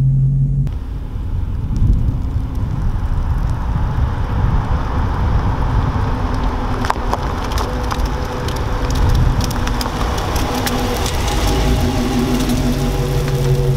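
2015 Dodge Charger R/T's V8 exhaust through Flowmaster 40 mufflers with the resonators deleted, heard from outside as the car drives across a lot and passes close by. The rumble grows fuller as the car nears.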